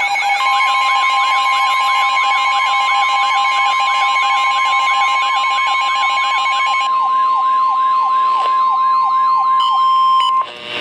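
A weather radio's steady single-pitch warning alarm tone, the NOAA 1050 Hz tone that announces a warning is about to be read. It is layered with a fast electronic siren-like warble that repeats about two and a half times a second. The tone cuts off shortly before the end.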